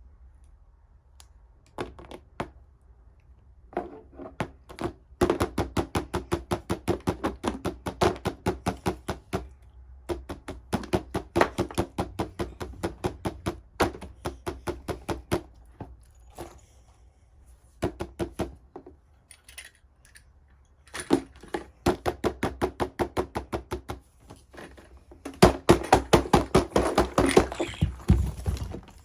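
Silicone pop-it fidget toy bubbles being pressed through in quick runs of pops, several a second, with short pauses between runs.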